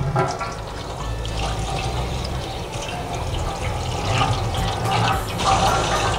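Tap water running and splashing into a sink as an oily foam engine air cleaner element is rinsed and worked by hand under the stream.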